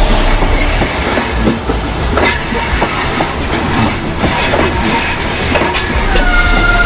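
GWR High Speed Train (InterCity 125) coaches rolling past close by, wheels rumbling and clicking over the rail joints. A steady squeal sets in about six seconds in.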